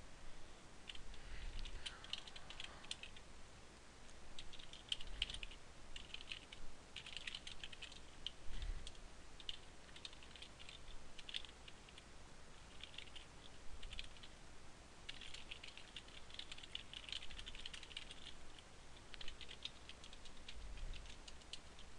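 Computer keyboard typing: quick runs of keystrokes in bursts with short pauses between them.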